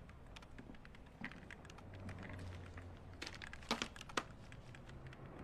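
Faint typing on a computer keyboard: scattered light key clicks, with a few sharper taps between about three and four seconds in.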